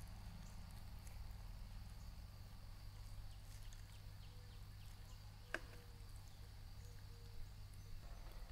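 Faint outdoor ambience: a steady thin high-pitched hum over a low rumble, with one sharp click about five and a half seconds in.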